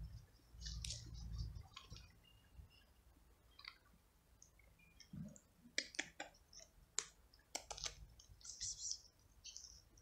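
Faint scattered sharp clicks and crackles, with a cluster of louder ones between about six and eight seconds in, and a low rumble during the first two seconds.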